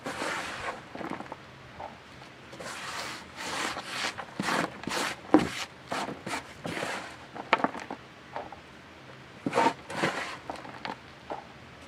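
Hands rustling and scraping through potting compost and potatoes, an irregular run of rubs and scuffs with a few sharper knocks.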